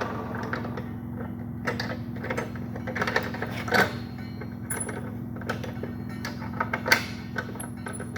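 Scattered clicks, clacks and knocks of hard objects being handled, most likely batteries and plastic parts being set up for cutting, over a steady low hum. The saw is not cutting.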